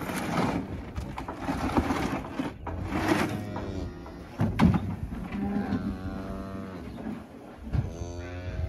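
A plastic sled scrapes over straw and dirt. From about halfway a cow moos several times, with long, low calls.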